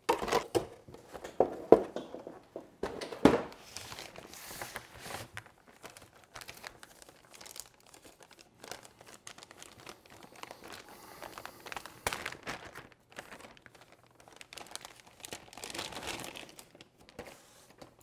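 Paper manuals and a cardboard motherboard box being handled, then a motherboard's plastic anti-static bag crinkling as the board is taken out: irregular rustling and crinkling with a few sharp clicks, busiest in the first few seconds.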